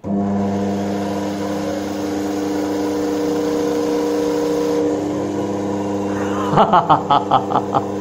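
Treadmill DC motor switched on, belt-driving a washing-machine universal motor: a steady electric motor hum with strong steady tones that starts abruptly. About six and a half seconds in, a rapid rhythmic pulsing of about five strokes a second joins it, as the universal motor self-excites as a generator and lights its incandescent bulb.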